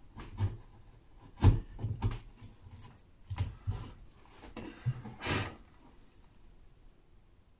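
Hand tools working a pine piece fitted to a wooden door: a string of about eight irregular sharp knocks and taps, the loudest about a second and a half in, with a longer scraping sound about five seconds in. The sounds stop about six seconds in.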